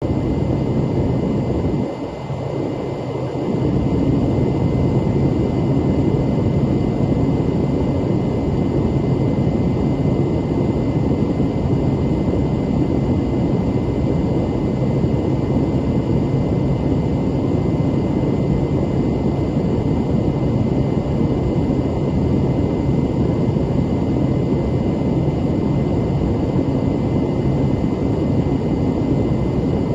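Twin-turboprop Beechcraft King Air 250 heard from the cockpit: a steady engine and propeller drone with constant humming tones. It dips briefly about two seconds in.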